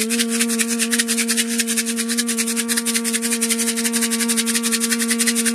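A handheld ritual rattle shaken rapidly and evenly without pause, over a single steady held tone.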